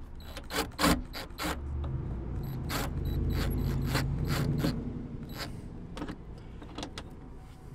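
Craftsman cordless driver running in bursts to drive screws into a door speaker bracket, its motor hum lasting several seconds and fading out about five seconds in, with sharp clicks and rattles of the bracket and screws.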